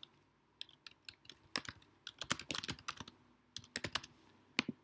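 Typing on a computer keyboard: quick, irregular runs of key clicks with short pauses between them, as a short phrase is typed.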